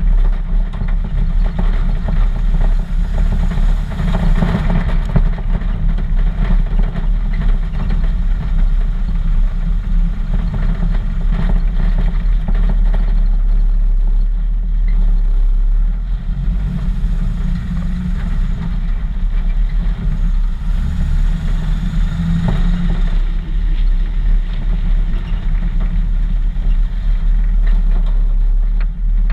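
Custom 1941 Chevrolet truck's engine running steadily, mostly a low rumble.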